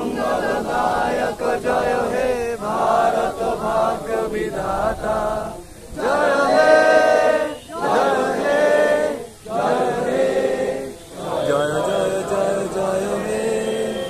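A group of people singing a song together in unison, phrase by phrase with short pauses for breath, with one long held note about six seconds in.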